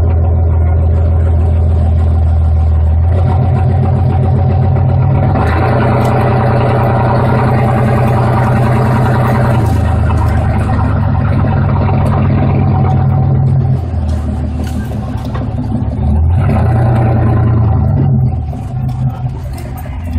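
A vehicle engine running loud under load, its revs rising and easing as it drives. It backs off briefly about two-thirds of the way through and again near the end.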